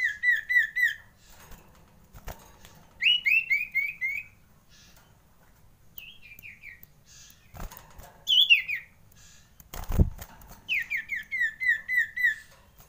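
Common iora calling in short bursts of quick, repeated downslurred whistled notes, five phrases of about four to eight notes each, which the uploader presents as the iora's frightened alarm call. A few sharp knocks fall between the phrases, the loudest about ten seconds in.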